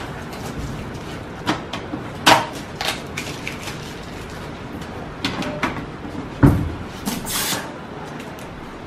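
Blue packing tape being peeled off a new Epson L805 printer, with rustling plastic wrap and knocks of hands on the printer's plastic body: a string of short tearing and crinkling strokes, one longer hissing peel about seven seconds in, and a louder thump just before it.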